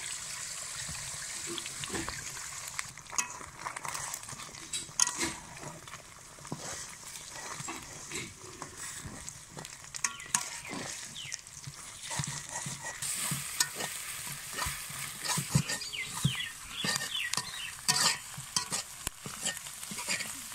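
Beaten eggs frying with chopped onions in a large metal wok, sizzling steadily. A metal spatula stirs and scrambles them, scraping and knocking against the pan in frequent sharp clicks, which are busiest in the second half.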